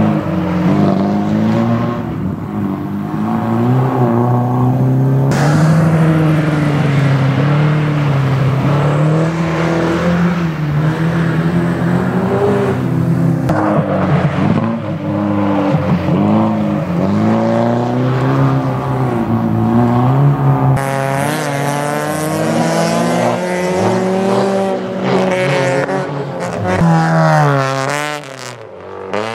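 Autocross car engines revving hard through a gravel corner, their pitch rising and falling with each throttle change. A classic Lada saloon's four-cylinder is joined about twenty seconds in by a second car's higher, faster-swinging engine.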